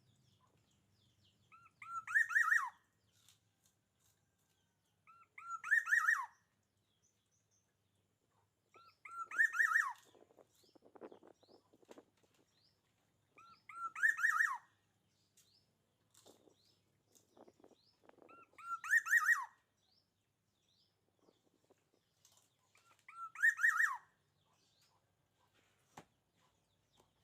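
Tengkek (kingfisher) calling: six bursts about four to five seconds apart, each a quick run of short, sharp notes ending in a falling note.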